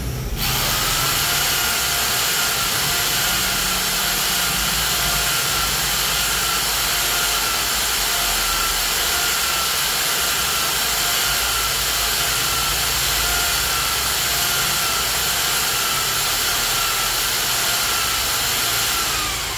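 Electric hand drill running steadily with a steady whine, spinning an engine valve against its seat to lap it in with abrasive grinding compound. It starts about half a second in and winds down at the end.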